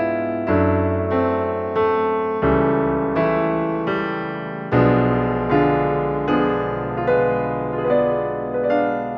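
Background music played on a piano-like keyboard. Soft notes and chords are struck at a steady pace, about one every three-quarters of a second, and each one fades before the next.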